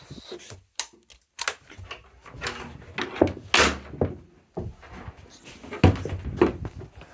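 Irregular knocks, thuds and rubbing of something being handled, with the heaviest thud about six seconds in.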